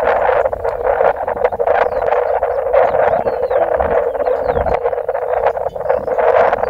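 A dense, continuous chorus of many animal calls, with rapid overlapping chatter.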